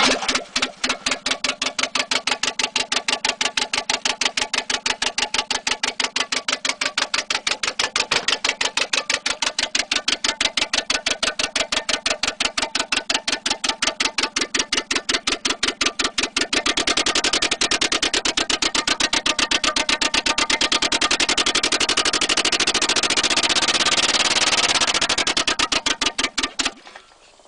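Toyota AA60 Carina's engine coughing and spluttering in an even train of rapid pulses, several a second: it is running badly. About two-thirds in the pulses become denser and brighter, and they cut off suddenly near the end.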